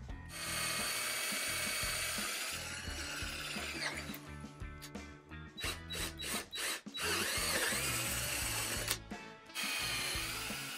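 Power drill boring out the old dowels from the wooden chair's joint holes. It runs in several bursts with short stops, its whine rising and falling with speed.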